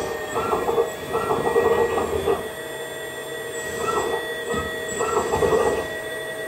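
LESU Carter374 RC hydraulic excavator running: a steady whine from its hydraulic system, swelling into louder bursts each time the boom, arm and bucket are moved from the remote, with a lull in the middle.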